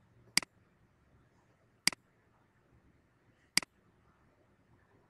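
Three sharp computer mouse clicks about a second and a half apart.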